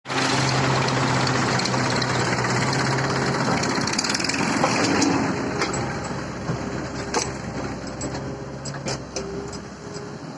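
Tractor diesel engine running steadily, louder for the first half and then easing off, with a few sharp knocks or clanks in the second half.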